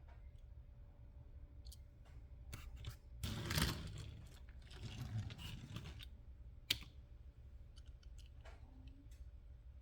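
Toy Jeeps being handled: scattered light clicks, a few seconds of rustling and scraping in the middle, and a sharp click a little later.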